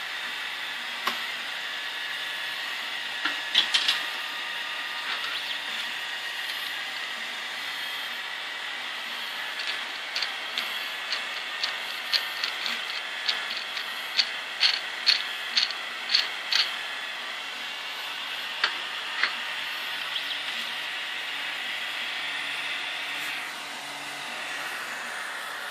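RepRapPro Ormerod 3D printer running, a steady whir of its fans and motors, dipping a little near the end. Over it come a couple of sharp clicks a few seconds in, then a run of sharp clicks, about two a second, through the middle.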